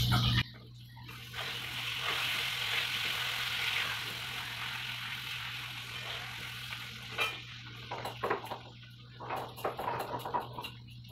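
Food sizzling as it fries in oil in a wok, stirred with a metal spatula. The sizzle fades about seven seconds in, and a run of sharp clinks and knocks of utensils follows.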